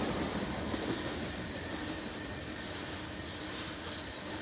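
Real BNSF unit coal train rolling past: a steady noise of steel wheels on rail, with a faint steady tone over it.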